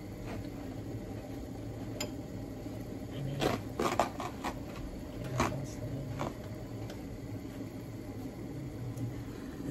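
Dishes and cutlery clinking and knocking as they are handled on a counter. The clinks come in a cluster about three to four and a half seconds in, with a few more around five to six seconds, over a steady low hum.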